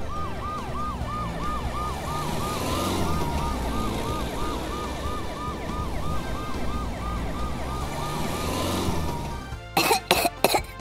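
Siren in a fast repeating yelp, about three rising-and-falling notes a second, over a low rumble; it stops about a second and a half before the end.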